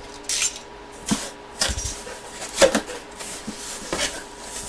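Rustling and handling of box packaging during an unboxing, in several short scraping bursts.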